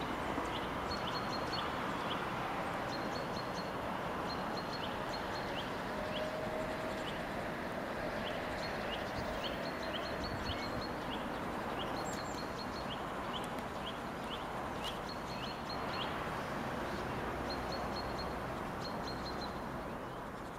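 Small birds chirping over and over, short high notes, some in quick little runs, above a steady background rumble.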